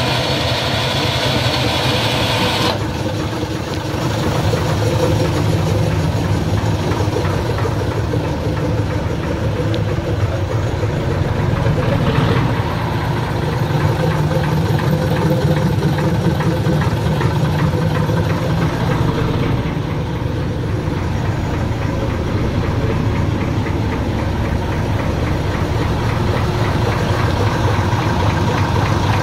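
Class 04 shunter's Gardner eight-cylinder diesel engine idling steadily while it warms up after a cold start, heard close up from the engine compartment. A high hiss cuts off suddenly about three seconds in.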